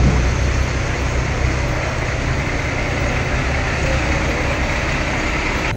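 An engine running steadily: an even low hum under a constant hiss.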